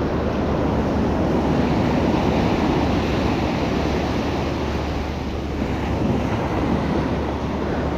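Surf washing onto a sandy beach, with wind buffeting the microphone; a steady rush of noise that eases slightly about five seconds in.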